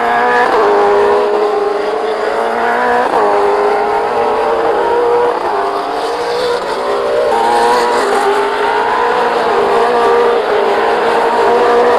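V8 Supercar's 5.0-litre V8 engine under hard acceleration, its pitch climbing steadily and dropping back sharply at each gear change, several times over.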